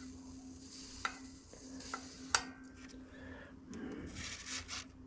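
Hot soldering iron tip being wiped clean: faint scraping and rubbing noise with a few sharp clicks, busier in the last second or so.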